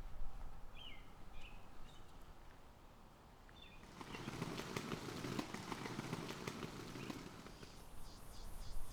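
Outdoor ambience with a few short bird chirps about a second in. About four seconds in, a louder rustling, crunching noise with small clicks sets in. Near the end a quick, regular high ticking starts.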